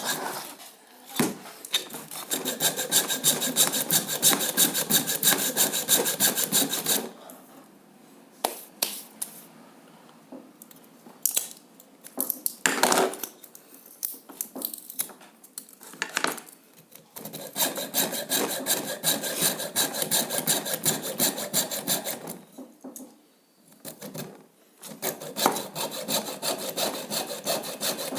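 Hacksaw blade cutting into a microwave oven transformer's coil with rapid back-and-forth strokes. It comes in three spells, broken by a long pause after about seven seconds and a shorter one about three-quarters of the way in.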